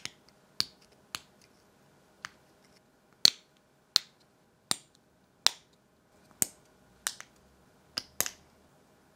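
Hard plastic clicks from 3D-printed parts being fitted together and handled: small hexagonal adjuster inserts pressed into the hexagonal cutouts of printed arm brackets. About a dozen sharp clicks, most of them a little under a second apart, with a quick double click near the end.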